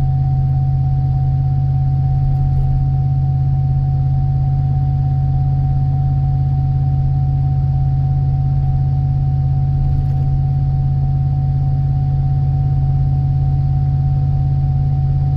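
Inside the cabin of a 2003 Chevy Tahoe with its 5.3-litre V8 pulling steadily up a hill: a steady low engine and exhaust drone with road rumble. A thin, steady high tone sits over it.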